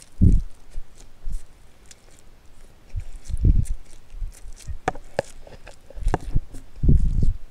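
A man eating ramen noodles with a fork close to the microphone: chewing and slurping, with several low breathy gusts and a few sharp mouth clicks.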